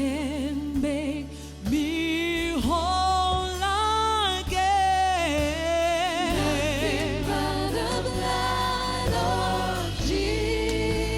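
Live gospel worship music: several singers holding long notes with vibrato, over keyboard and a steady bass line.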